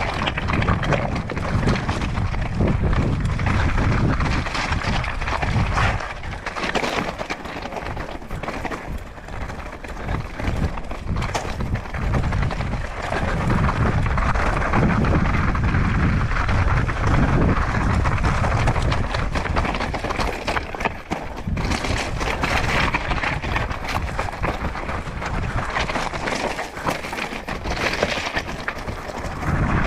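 Mountain bike riding down a loose, rocky trail: tyres running over gravel and stones with constant knocks and rattles from the bike, and wind buffeting the microphone. It eases off for a few seconds after about six seconds in, then gets loud again.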